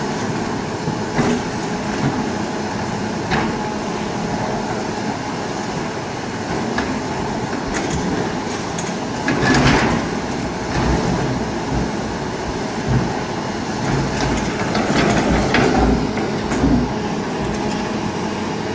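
Doosan crawler excavator running steadily under load, with clanks and knocks now and then as it works a huge stone block into a dump truck's steel bed.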